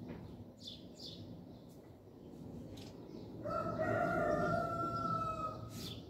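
A rooster crowing once, a drawn-out crow of about two seconds starting about three and a half seconds in. Small birds chirp briefly near the start.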